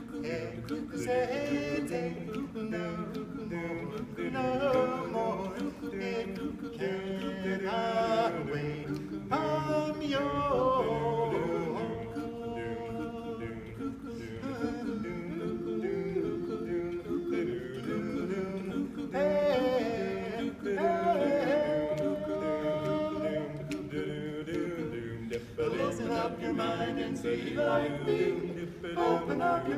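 Barbershop quartet singing a cappella: four voices in close harmony, sustained chords shifting from note to note with no instruments.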